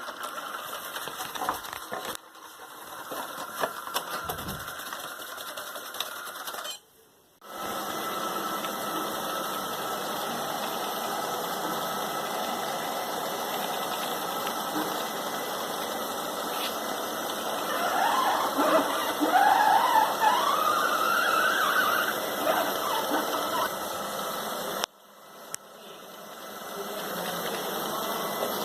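ILIFE V5s Pro robot vacuum cleaner running, a steady motor-and-brush whirr, broken by two abrupt cuts. Near the middle a brief warbling tone rises and falls over it.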